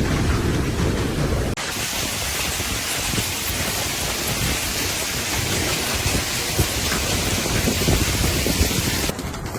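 Hailstorm: a steady loud hiss of hail and rain falling hard, with scattered sharp ticks of stones striking. The sound changes abruptly about a second and a half in, from a deep rumbling noise to a brighter, hissier one.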